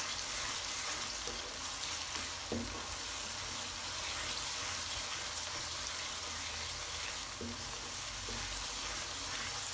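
Onion-tomato masala with ground spices sizzling steadily in hot oil in a non-stick kadhai while a wooden spatula stirs it round, as the masala is being fried (bhuna).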